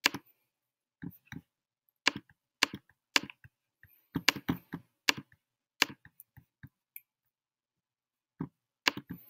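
Irregular sharp clicks and taps from working a laptop computer, about a dozen and a half of them, with a short pause before the last few.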